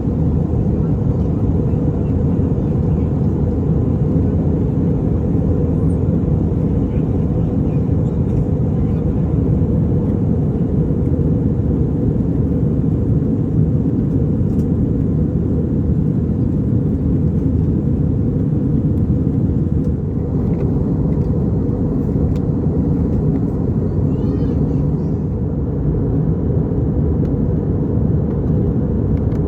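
Steady low drone of an Airbus A320 passenger cabin in flight: engine and airflow noise running at an even level.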